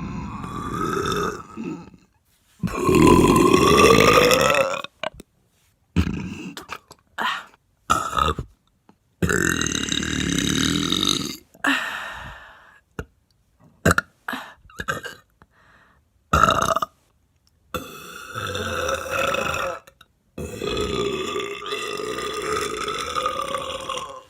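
A woman belching repeatedly: about ten burps, some long and drawn out, some short, with sudden gaps between them. The loudest comes a few seconds in and rises in pitch.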